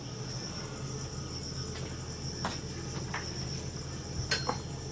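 A steady high-pitched insect trill over a low hum, with three faint clicks.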